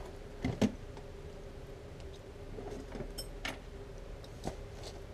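Scattered light clicks and knocks of parts and tools being handled while a motorcycle's chain guard is refitted, the loudest pair about half a second in, over a faint steady hum.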